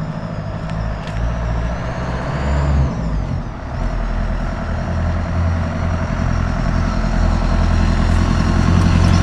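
A motor vehicle running, with a steady low engine hum and road noise that grow louder toward the end.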